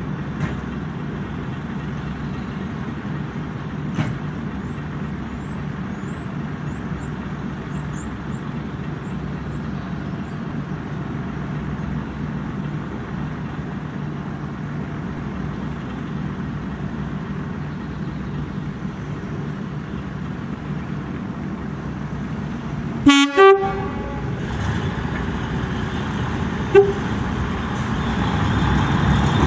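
Diesel multiple unit engine idling steadily at the platform, then two short loud blasts on its horn about three-quarters of the way through and a brief toot a few seconds later, after which the engine note rises as the unit pulls away. A small bird chirps faintly over the idling in the first half.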